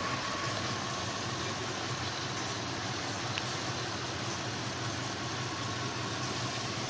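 Dodge Ram 1500's 5.9-litre V8 idling steadily.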